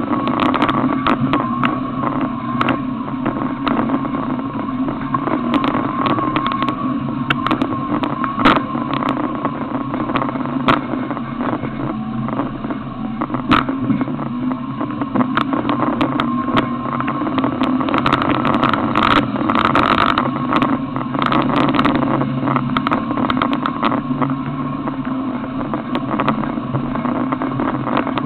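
Off-road 4x4's engine running steadily while driving over a rough dirt track, with frequent knocks and rattles from the bumps.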